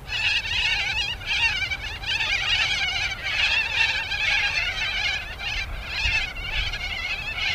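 A large flock of birds calling together, a continuous chorus of many overlapping high, wavering calls.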